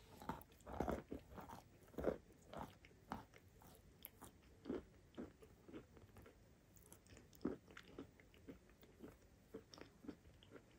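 Close-miked chewing of a mouthful of edible chalk coated in chalk paste: irregular crunches, coming thick and loud over the first two seconds, then thinning to sparser, fainter crunches as the mouthful breaks down.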